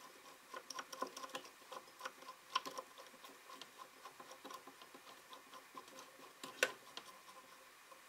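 Faint, irregular light clicking and ticking from a drill press's variable-speed (variator) pulleys and belt being turned slowly by hand, with one sharper click late on.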